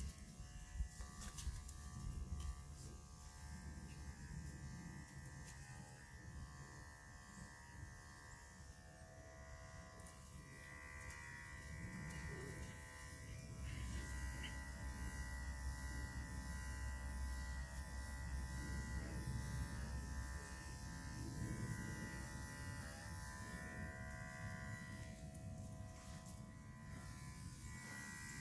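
Electric dog-grooming clippers buzzing steadily as they trim a Great Pyrenees' coat around the head and neck.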